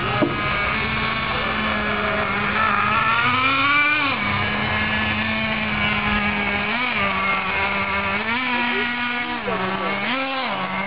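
Traxxas Jato 3.3 nitro RC buggy's TRX 3.3 two-stroke glow engine running at a steady buzz and rising and dropping in pitch several times as the throttle is blipped. It is held to part throttle, never revving high enough to shift the two-speed transmission into second gear.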